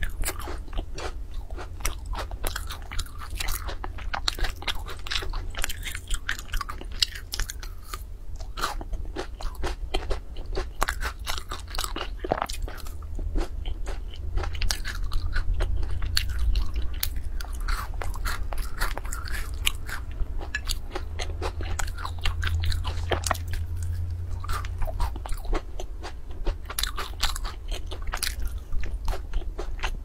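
A person biting and chewing a crispy sesame-coated fried snack: dense, sharp crackling crunches.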